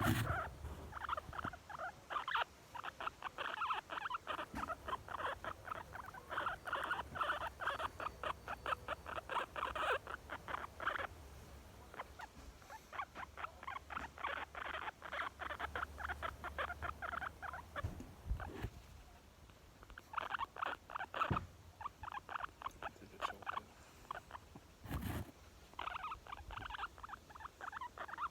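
Young guinea pig squeaking in long runs of rapid, evenly repeated short squeaks, with a few pauses, a sound the owner takes as contentment. A few brief knocks sound between the runs.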